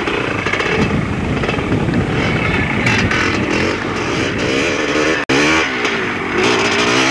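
Enduro dirt bike engines revving hard under load on a climb. The sound drops out abruptly for an instant about five seconds in, and after that a single engine's pitch rises and falls.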